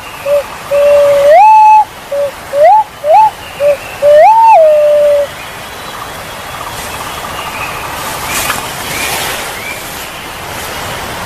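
Punai walik jawa (a green pigeon) calling: a run of clear notes that slide up in pitch, with short low notes between them. Two longer notes are held at the top, and the last one falls back down about five seconds in. The calls then stop, leaving a steady background hiss.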